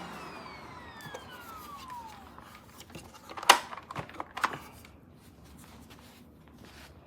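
Upright vacuum cleaner switched off, its motor winding down in a falling whine over about two seconds. A few sharp clicks and knocks follow, the loudest about three and a half seconds in.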